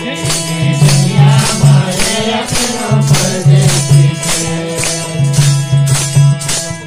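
Live Hindi devotional bhajan music: jingling tambourines keep a steady beat of about three strokes a second over a harmonium's held notes, with voices singing along.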